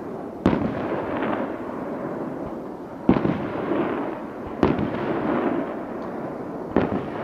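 Aerial firework shells bursting: four sharp bangs a second or two apart, each trailing off in a long echoing rumble.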